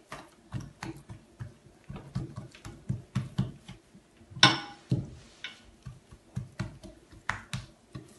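Hands stretching and rolling a thin sheet of buttered bread dough around itself on a glazed earthenware dish: a run of irregular soft slaps and pats, with one louder slap about halfway through.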